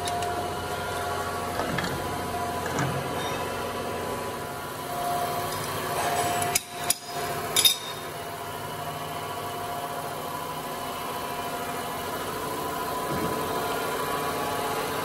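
Steady hum and whine of workshop machinery, with cast rotors clinking against each other as they are picked from a pile in the first seconds. Two sharp clicks about a second apart come near the middle.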